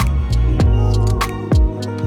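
Background music: a gentle plucked-guitar tune over a deep bass line with a steady kick drum and hi-hat beat.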